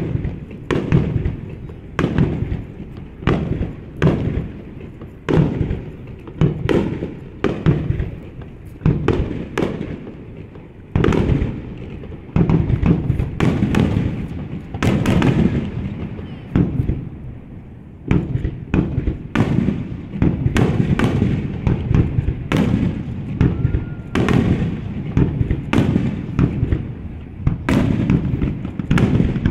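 Aerial fireworks shells bursting overhead: separate sharp bangs about once a second, then from about eleven seconds in a denser run of bursts that merge into a continuous rumble.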